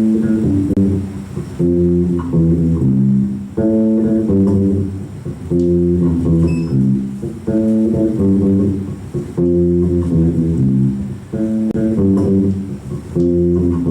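Bass guitar playing a salsa tumbao line on its own, a short phrase of low plucked notes repeating about every two seconds.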